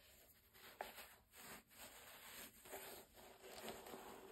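Faint rustling and scraping of white cotton gloves handling a suede and hemp sneaker as it is turned over, with a small sharp click about a second in.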